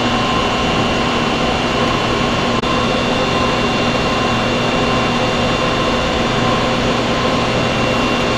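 Steady whirring machine noise with a few faint, even whine tones on top, unchanging throughout.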